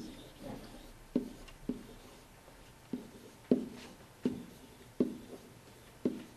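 Pen or stylus knocking on a touch-screen surface as words are handwritten: about eight short, sharp taps at uneven intervals, roughly one a second, each pen-down stroke making a dull click.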